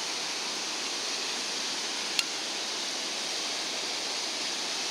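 Steady hiss of ocean surf breaking on the beach, with one sharp click about two seconds in.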